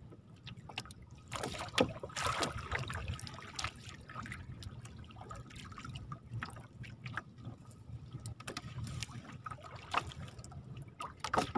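Water dripping and splashing as a wet gill net is hauled over the side of a small paddled boat, with scattered knocks and patters and the lap of the lake water against the hull.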